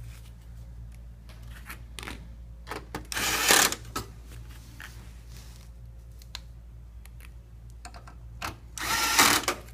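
Electric screwdriver driving motherboard screws in two short bursts, about three seconds in and again near the end, with small clicks and taps of screws and bit in between.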